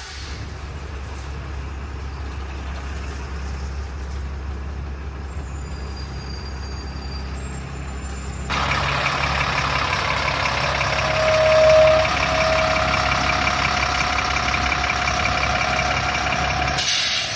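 Large ex-military diesel truck running with a steady low rumble. About eight and a half seconds in, the sound abruptly gets louder and fuller, and a whining tone rises over it for a second or two near the middle.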